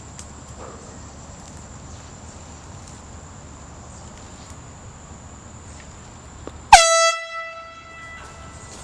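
An air horn lets off one short, very loud blast nearly seven seconds in. It is a single horn tone rich in overtones that cuts in suddenly, dips slightly in pitch at the start and trails off over about a second.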